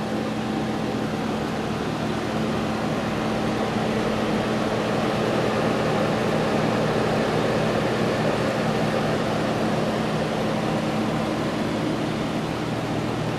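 Steady mechanical hum with a low drone, unchanging throughout.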